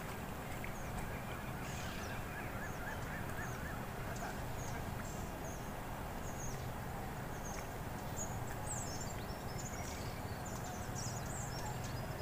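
Birds calling over a steady low background noise: a quick run of about six repeated notes a couple of seconds in, then many short, high chirps through the second half.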